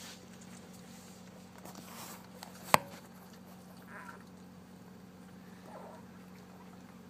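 Newborn puppies giving a few faint, brief squeaks while nursing, over a steady low hum. A single sharp click about three seconds in is the loudest sound.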